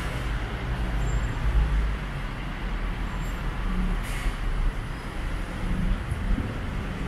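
Street traffic: engines of passing vehicles running with a steady low rumble, and a brief hiss about four seconds in.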